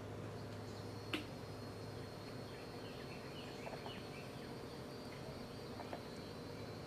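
Quiet background ambience: a thin, high steady tone with a few faint chirps near the middle, over a low steady hum. There is one sharp click about a second in and a smaller one near the end.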